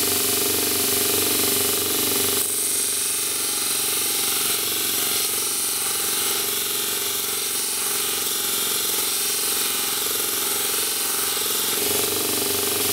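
Homemade belt grinder driven by a bench grinder motor, running with its abrasive belt. From a couple of seconds in until near the end, a steel bar is pressed against the belt, adding a steady grinding hiss over the motor and belt.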